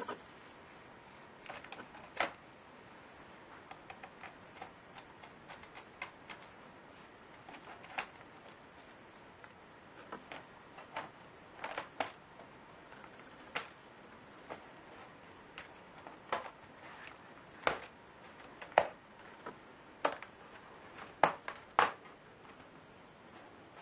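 Irregular sharp clicks and taps, scattered every second or so with a few louder ones in the second half, from small plastic and metal laptop parts and tools being handled.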